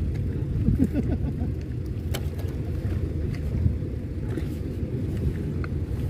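Strong wind buffeting the microphone: a steady low rumble.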